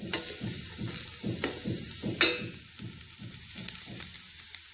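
Chopped vegetables sizzling in hot oil while being stir-fried, the stirring utensil scraping the pan in quick repeated strokes. A sharp clack against the pan comes about two seconds in.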